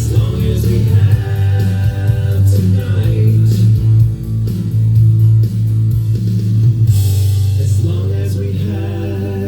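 Recorded music: an instrumental stretch of a song led by guitar over a steady bass line.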